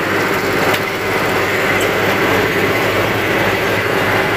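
Diesel engine of an excavator running steadily at a constant speed, with a few light knocks from work on the steel weighbridge frame.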